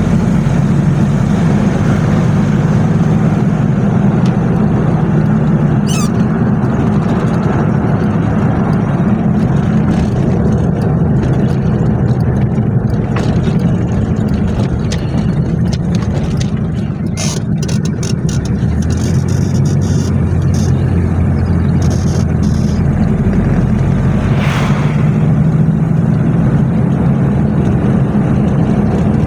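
1995 Toyota Hilux LN106's 3L four-cylinder diesel running under load, clattering as it accelerates. The engine note eases off briefly about two-thirds of the way through, then picks up again. A few sharp clicks are heard along the way.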